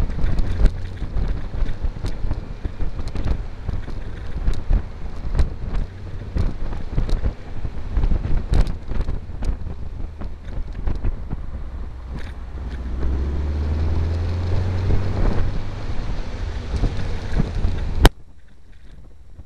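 Open-top buggy's engine running while driving, heavily buffeted by wind on the microphone. The engine grows louder for a couple of seconds about two-thirds of the way through, and near the end a sharp click is followed by a sudden drop in sound.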